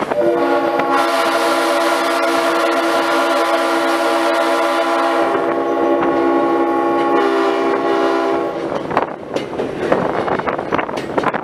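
Diesel locomotive's air horn, heard from on board, sounding one long blast of about eight seconds: several notes at once, with the chord shifting slightly about five seconds in. After it cuts off, wind and the rumble of the moving train remain.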